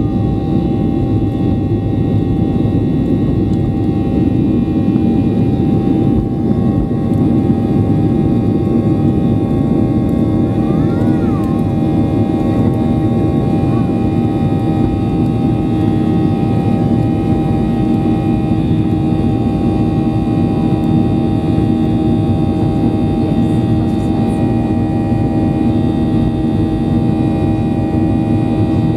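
Boeing 737-800's CFM56-7 turbofan engines heard from inside the cabin, running at a steady setting: a dense low noise with several steady whining tones above it. A brief faint rising-and-falling tone comes about eleven seconds in.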